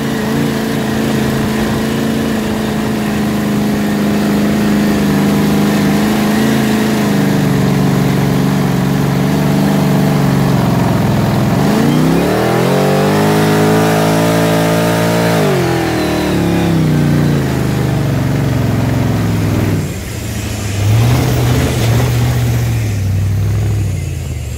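Off-road buggy's engine heard from inside the cockpit, running steadily, then revving hard about halfway through and held high for a few seconds before dropping back. It revs up briefly once more near the end.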